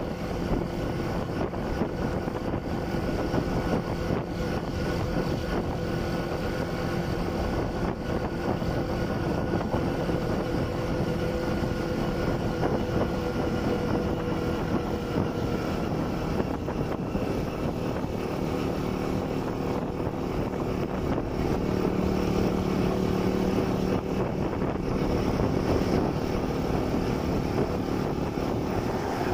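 Delivery motorcycle's engine running steadily at riding speed, with wind noise on the microphone; the engine note rises a little and gets louder about three-quarters of the way through.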